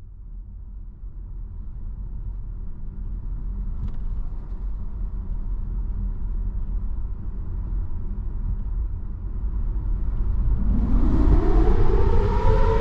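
Low, steady rumble that grows louder, then about ten seconds in a Federal Signal Thunderbolt outdoor warning siren begins to wind up, its tone rising steadily in pitch and loudness.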